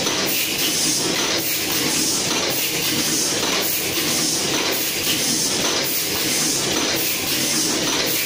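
Automatic facial-mask folding and bagging machine running, a steady mechanical clatter mixed with the hiss of its pneumatic cylinders, repeating in a regular cycle as it folds and bags each mask.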